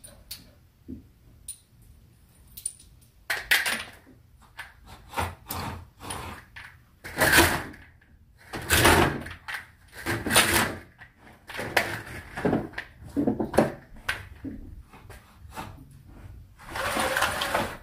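Slats of window blinds clattering and rattling against each other as they are dusted with a hand duster, in irregular bouts starting about three seconds in.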